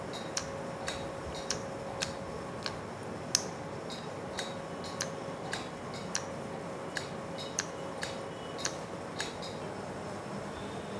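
Microneedling radiofrequency (MNRF) handpiece firing its needles shot after shot: a sharp click about every half second, over a faint steady tone from the machine.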